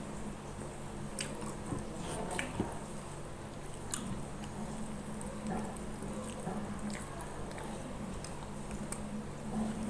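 A person chewing and biting food close to the microphone, with wet, squishy mouth sounds and scattered small clicks, while eating spicy catfish curry. A low steady hum sits underneath.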